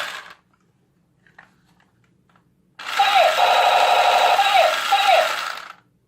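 Electronic firing sound effect of a battery-powered toy rifle: a roughly three-second burst of rapid machine-gun rattle with falling zap tones, preceded by a few faint clicks.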